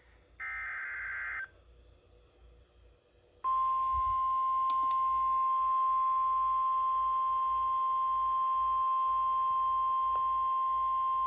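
NOAA Weather Radio emergency alert: the last one-second burst of SAME digital header data, a buzzy warble. About two seconds later the steady 1050 Hz weather radio alert tone comes on and holds, announcing a Flash Flood Watch.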